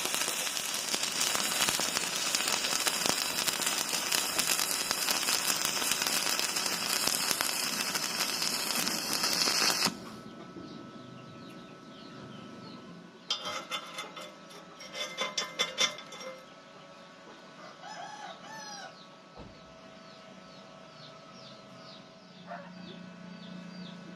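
Stick welding arc crackling and hissing steadily for about ten seconds, then cutting off abruptly. Afterwards chickens and small birds call quietly in the background.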